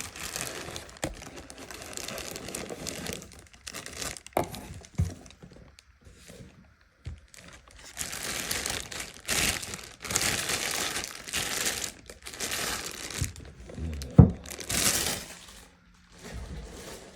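Packaging crinkling and tearing in uneven bursts as a box is unwrapped and pulled out of it by hand, with a few short knocks and one louder thump about fourteen seconds in.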